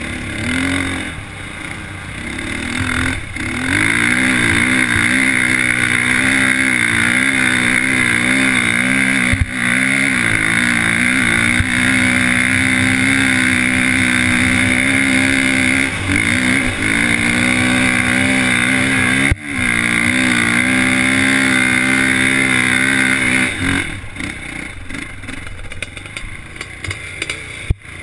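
Dirt bike engine running hard at high revs, its pitch wavering, as it climbs a sand dune, with a few brief dips in the middle. The throttle comes off about four seconds before the end. A low wind rumble sits on the helmet microphone.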